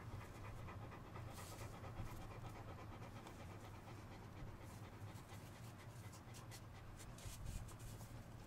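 Great Dane puppy panting in the heat, with the faint rustle of tape being wrapped around its ears.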